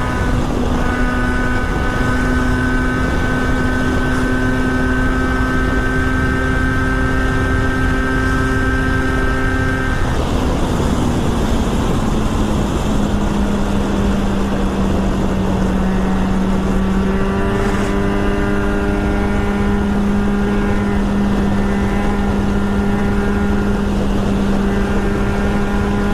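Motorcycle ridden at a steady speed: its Kawasaki Versys 1000 inline-four engine runs at a constant note under a heavy rush of wind noise. About ten seconds in, the engine note drops in steps and settles lower for the rest of the time.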